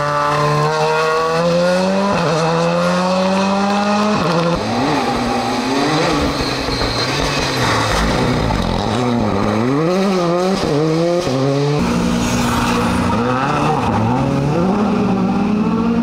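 Rally car engine pulling hard, its revs climbing with a gear change about two seconds in and another about four seconds in. Then the revs rise and fall repeatedly for several seconds before settling steadier near the end.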